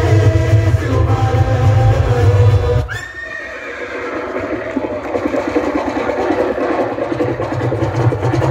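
Bass-heavy stage music cuts out about three seconds in, and a horse whinny sound effect comes in, starting with a sharp falling cry. It is followed by a fluttering, busy noise that continues.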